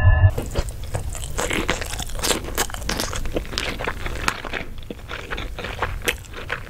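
Close-miked chewing of a mouthful of food, a dense run of crisp crunches and clicks.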